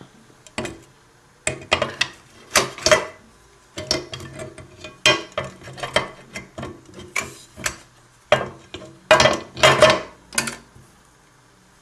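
Typing on an 1892 Empire No.1 thrust-action typewriter: a string of irregular metallic clacks, about two a second, some in quick pairs, as keys are pressed and the slugs strike the page.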